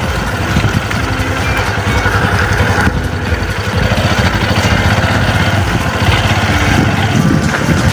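Motorcycle engine running steadily while the bike is ridden, under a continuous haze of road and wind noise.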